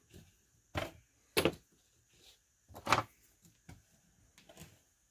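About five separate sharp clicks and knocks, spaced unevenly, from screwdrivers, a hammer and a hard plastic toy part being handled and set against a workbench.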